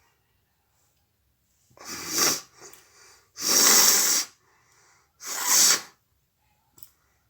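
A woman sneezing three times in quick succession, each sneeze loud, with softer sniffs and breaths between them.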